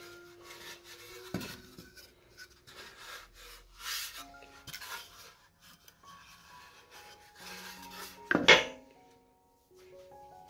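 Soft background music under pine boards rubbing and scraping on a metal-topped workbench as they are handled, with one loud knock of wood set down on the metal near the end.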